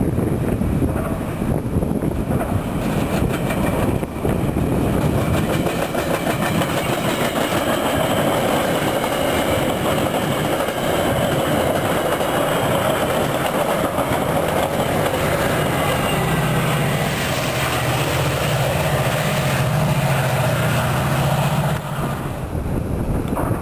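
Metra commuter train of bilevel gallery coaches rolling past at close range, its wheels rumbling and clicking over the rails and interlocking. A steady diesel engine hum grows stronger in the last several seconds as the MP36PH-3S locomotive pushing at the rear comes by, working to pull away from the station.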